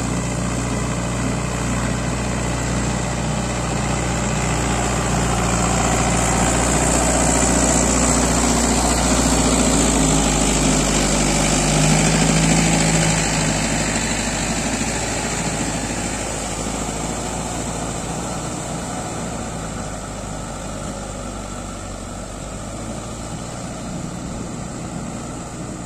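Mahindra Yuvo 585 tractor's four-cylinder diesel engine running steadily under load, held at about 1900 rpm while driving a Shaktiman rotavator through wet paddy stubble. It grows louder as the tractor passes close, loudest about halfway through, then fades as it moves away.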